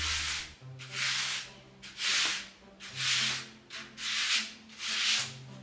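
A hand rubbing or scraping across the coarse back of an old linen canvas in repeated back-and-forth strokes, about one a second.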